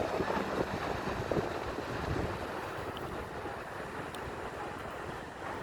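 Wind buffeting the microphone over the steady wash of sea waves, stronger in the first couple of seconds and easing slightly after.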